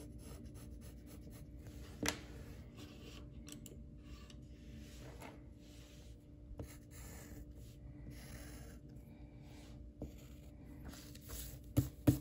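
Faint scratching of a drawing tool stroking across paper while sketching, with a few light knocks, the loudest two near the end.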